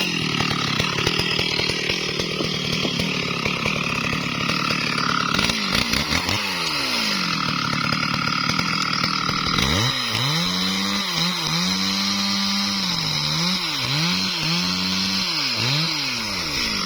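STIHL MS382 two-stroke chainsaw running at high revs during felling, its engine pitch holding steady for a few seconds, then repeatedly dipping and climbing back; the sound cuts off suddenly near the end.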